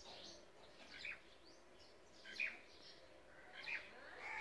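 Faint birdsong in a garden: short, scattered chirps from small birds, the loudest about two and a half seconds in, over a low background hush.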